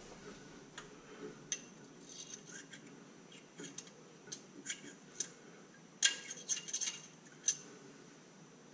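A thin metal tool probing and scraping inside a threaded bolt hole in an engine's timing cover. It gives light, scattered metallic clicks, with a quick flurry of them about six seconds in. This is fishing for the broken-off Heli-Coil tang inside the hole.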